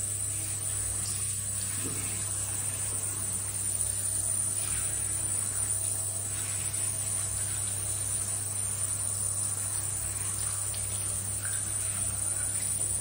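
Handheld shower head spraying water onto a wet puppy, a steady hiss, with a steady high-pitched whine and a low hum underneath.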